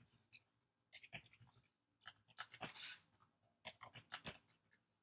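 Faint clicking of computer keyboard keys in quick runs of keystrokes, typing a line of code.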